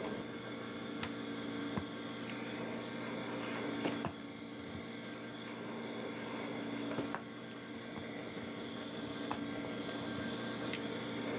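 Handheld gas torch hissing steadily as its flame softens a pine-resin work block, over a steady low hum, with a few faint clicks.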